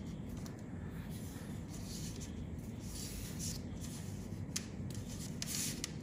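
Hands handling and rubbing insulated hookup wires: soft rustles, with a few sharper scratchy rustles near the end, over a steady low background hum.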